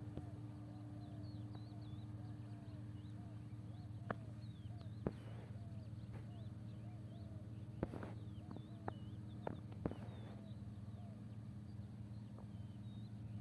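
Faint birds chirping over a steady low hum, with several sharp clicks or knocks scattered through.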